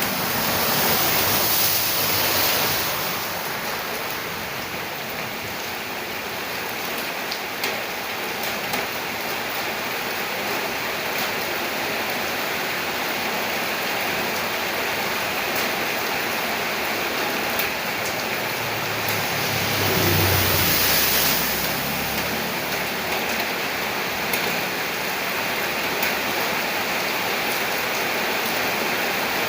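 Steady rain falling, its hiss swelling louder twice, near the start and about two-thirds through, the second time with a brief low rumble.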